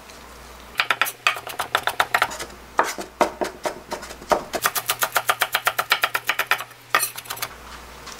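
Wide-bladed kitchen knife rapidly mincing carrot and other vegetables on a wooden cutting board, a fast run of even knocks. The chopping starts about a second in, stops briefly, then resumes and goes on until near the end.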